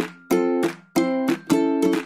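Background music: chords strummed on a plucked string instrument such as a ukulele, a little under two strums a second.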